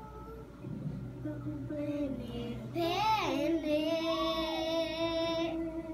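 A young girl singing a melody. Her voice rises sharply about three seconds in into a long held note.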